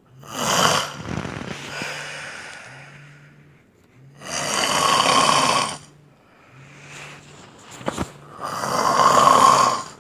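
A man snoring loudly in deep sleep: three long snores about four seconds apart, the first trailing off slowly.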